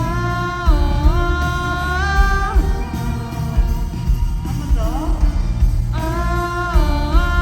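Live amplified band music with a lead vocal holding long sung notes that step up and down in pitch, over heavy bass and drums; the voice drops out briefly in the middle and comes back near the end.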